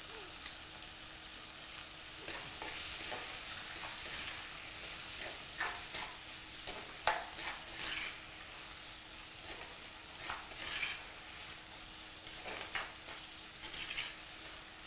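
Shallots and tomatoes sizzling in oil in a clay pot while being sautéed with salt, with a steel ladle scraping and clinking against the pot every second or two as they are stirred. A faint steady hum runs underneath.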